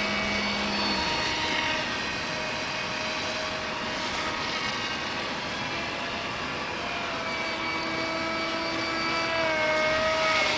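Brushless electric motor and propeller of a scratch-built RC plane whining in flight, over steady wind noise. The pitch slides down near the start and climbs again in the second half.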